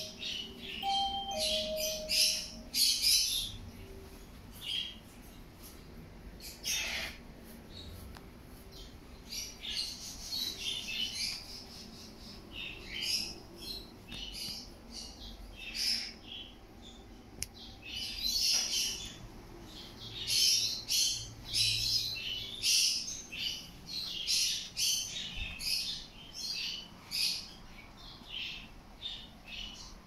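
Many small caged pet birds, such as parakeets, chirping and squawking in a busy, overlapping chatter. A two-note electronic chime sounds about a second in.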